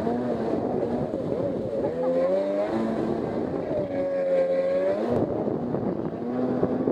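Jet ski engine running under changing throttle, its pitch rising and falling in long sweeps, over the rush of water and wind.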